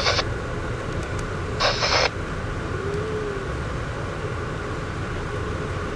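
Steady low rumble and hiss of a passenger train car rolling along the track, heard from inside the coach. A short, loud burst of hissing noise cuts in about two seconds in.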